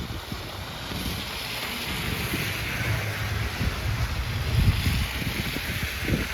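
Strong wind buffeting the microphone in low rumbling gusts, over a broad rushing noise that swells through the middle and peaks about three-quarters of the way in.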